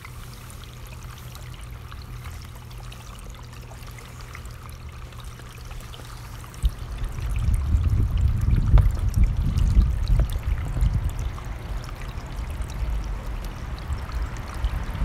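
A running mountain stream rushes steadily. From about seven seconds in, gusts of wind buffet the microphone with a louder, uneven low rumble.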